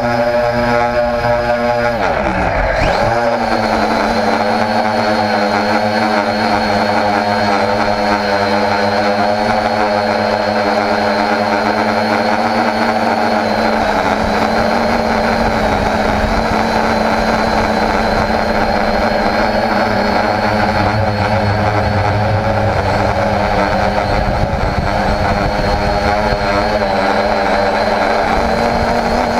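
Homemade quadcopter's electric motors and propellers running in flight, heard close up from the camera on board: a steady, loud buzzing whine whose pitch dips sharply and recovers about two seconds in as the throttle changes.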